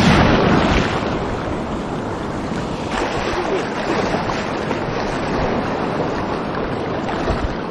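Heavy Baltic surf: waves breaking and washing in, loudest in the first second, with wind buffeting the microphone.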